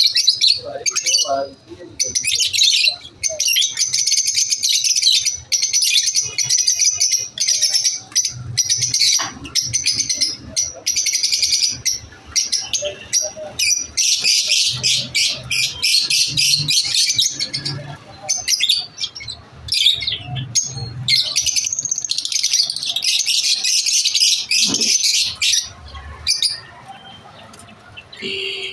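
Lovebirds chirping and chattering: rapid streams of high chirps in long bouts with short pauses between them, thinning out near the end.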